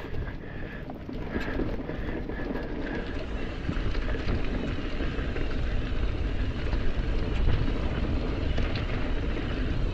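Mountain bike riding fast down a dirt forest singletrack: a steady rush of wind and tyre rumble with rattles from the bike, louder from about three seconds in.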